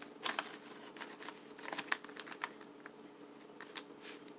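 Irregular small clicks and crinkles from handling a plastic snack pouch and pieces of dried beef biltong, over a faint steady hum.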